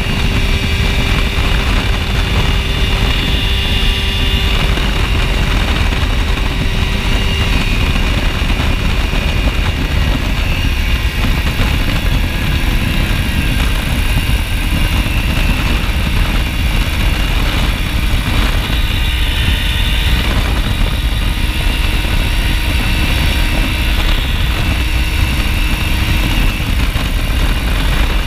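Open-cockpit ultralight aircraft in cruise flight: the engine and propeller run steadily under heavy wind rush on the microphone. The engine's pitch drops a little about twelve seconds in.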